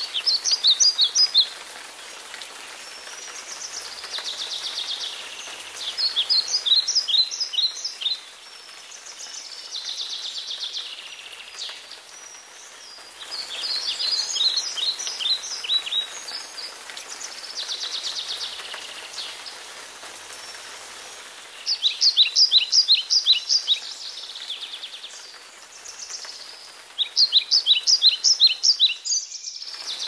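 Steady hiss of falling rain with a songbird singing over it: a buzzy phrase alternating with a quick run of sharp, downward-sweeping notes, the runs coming about five times and standing out as the loudest sounds.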